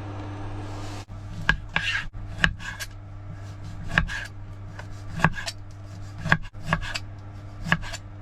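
Knife chopping food on a cutting board: sharp, uneven knocks, about one strong stroke a second with lighter ones between, starting about a second and a half in, over a steady low hum.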